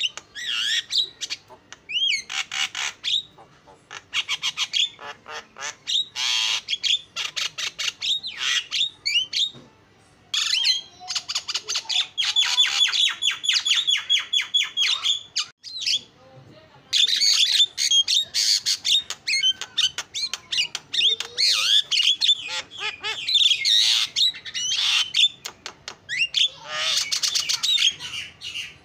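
Javan myna singing a long, varied song of fast rattling clicks, harsh squawks and gliding whistles, with two short breaks partway through.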